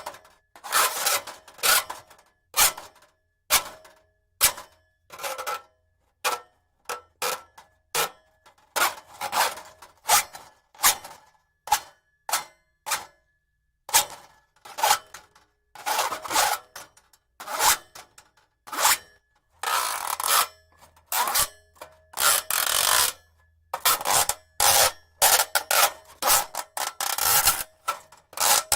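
Braided steel cable scraped and slid in a long run of short, light, raspy strokes, about one or two a second, with a few longer scrapes about two-thirds of the way through.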